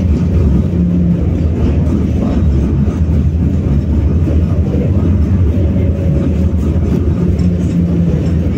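BKM-60102 tram running along the track: a loud, steady, low rumble, with a brief hum that comes in about a second in and again near the end.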